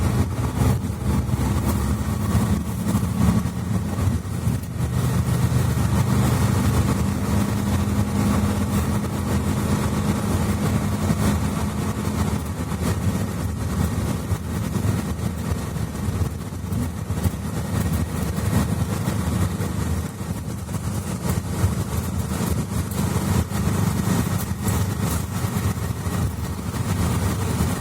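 Mercedes-Benz Citaro C2 articulated bus with a Voith automatic gearbox, heard from inside the passenger cabin: its diesel engine running with a steady low hum, its pitch shifting about twelve seconds in.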